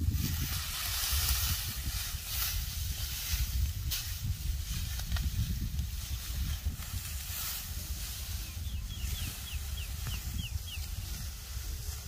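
Dry cut rice straw rustling and crackling as it is gathered by hand into a sheaf, over a steady low wind rumble on the microphone. Late on, a quick run of about ten short high chirps.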